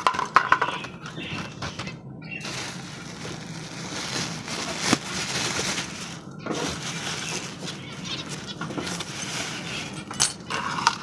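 A plastic bag of bird seed rustling and crinkling as it is handled, with a few sharp clicks.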